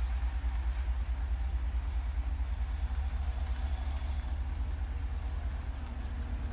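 1978 Dodge Street Van's engine idling with a steady low rumble.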